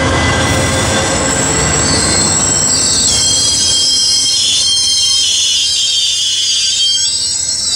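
Amtrak P42DC diesel locomotive and Superliner bilevel passenger cars passing close by. The engine rumble fades, and from about three seconds in the car wheels give a high-pitched squeal on the rails.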